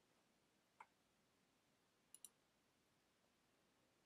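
Near silence with faint computer mouse clicks: a single click about a second in, then a quick double click a little after two seconds.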